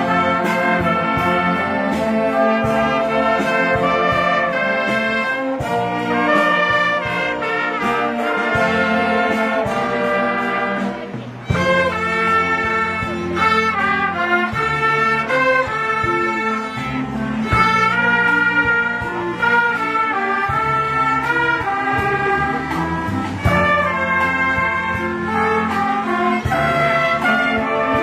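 A student orchestra playing a piece, with winds and strings together; the music dips briefly about eleven seconds in, then carries on.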